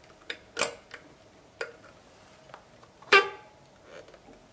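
Metal oxygen hose connector being handled and fitted onto the oxygen inlet of a Hamilton C6 ventilator: several light clicks, then a louder, briefly ringing metallic clink about three seconds in, over a faint steady hum.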